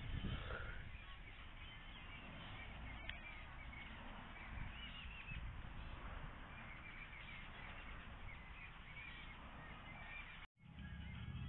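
Outdoor ambience of many small birds chirping and twittering over a low rumble. The sound cuts out completely for a moment near the end.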